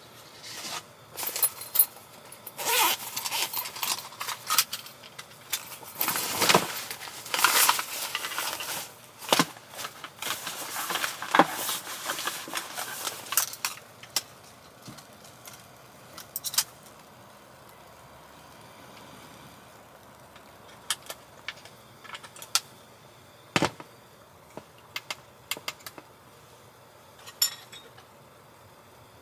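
Handling noises: dense rustling and light clinks and clatters for the first half, then scattered single clicks and knocks, one sharper knock a little past two-thirds through.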